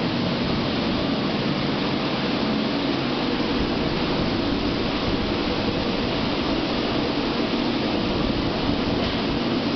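Steady industrial machinery noise from an aluminium melting and rod casting-and-rolling plant: an even, unbroken rush with a low hum underneath.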